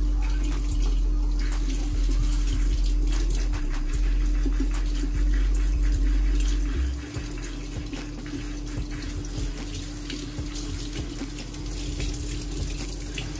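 Kitchen faucet running, its stream splashing through a child's hair and into a stainless steel sink as shampoo is rinsed out by hand. The splashing gets quieter about seven seconds in, with a steady hum underneath.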